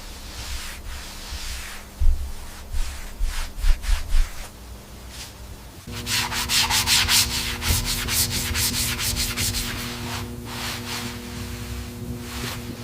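Sanding on a hammer under restoration: irregular abrasive rubbing strokes. About six seconds in, a power tool's motor starts with a steady hum, and fast, bright rubbing strokes continue over it.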